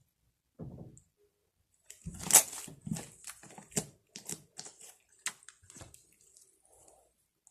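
Slime squelching and popping: a short squish just under a second in, then a dense run of wet pops and crackles from about two seconds that thins out and stops by about six seconds.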